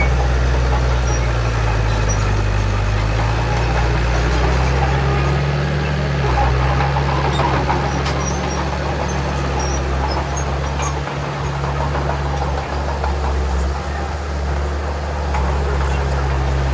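Heavy earthmoving-machine diesel engine running steadily, its pitch rising a little about two seconds in and then holding, over a constant mechanical noise.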